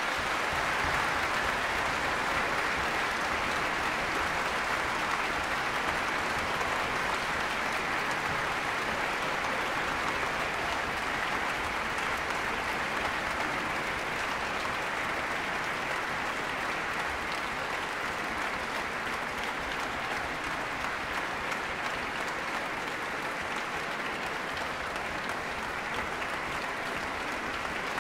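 A large concert audience applauding: dense, steady clapping that eases slightly in the later part.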